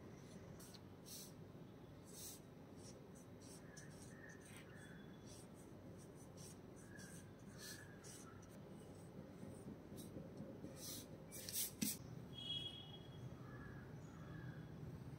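Pencil scratching across paper in short, irregular sketching strokes, faint, with a louder flurry of strokes about three quarters of the way through.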